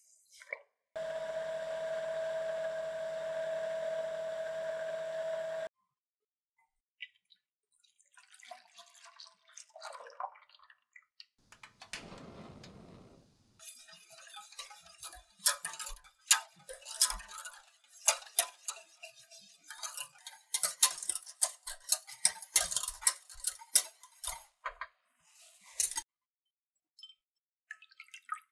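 A small electric blender runs steadily for about five seconds. Later, a wire whisk clicks and scrapes rapidly against a stainless steel saucepan for about twelve seconds while milk tea custard is stirred.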